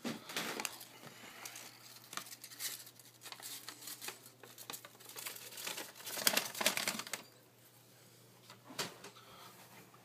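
Brown paper bag crinkling and rustling as it is handled and tipped to shake a live feeder mouse out, in irregular crackles that are loudest about six to seven seconds in.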